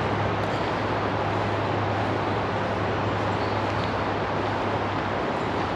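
Steady drone of highway traffic, a constant rush of tyre and engine noise with a low hum underneath.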